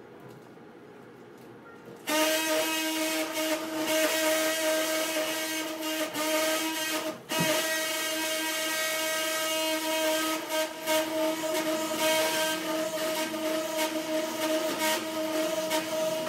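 Stryker Mako robotic arm's sagittal bone saw starting up about two seconds in and running with a steady high whine as it cuts the femur's posterior chamfer. It cuts out for an instant about seven seconds in.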